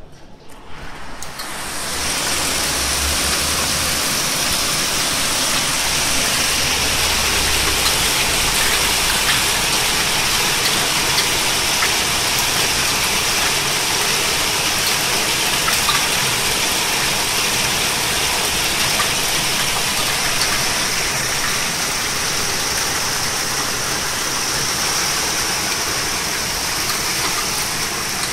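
Torrential rain mixed with hail pouring down onto roofs and a flooded street: a dense, steady rushing hiss. It is muffled for the first second or so, then comes in loud and full and holds steady.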